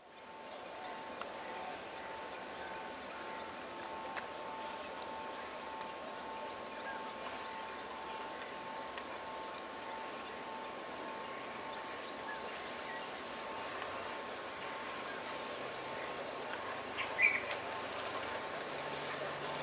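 Steady insect chorus: a continuous high-pitched drone with a fainter, lower steady tone beneath it, and a brief chirp about seventeen seconds in. Near the end a low engine hum from the approaching diesel locomotive faintly comes in.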